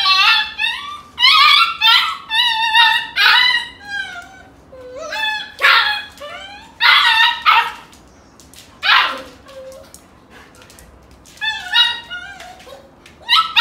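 Golden retriever puppy yelping and whimpering in a string of short, high-pitched cries while its mother wrestles and pins it in rough play. One long whine falls steeply about nine seconds in, and the cries come in clusters with quieter gaps between.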